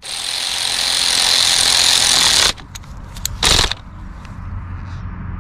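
A cordless power tool runs for about two and a half seconds and stops abruptly, then gives one short burst about three and a half seconds in. It is tightening the bolt that holds down an ignition coil.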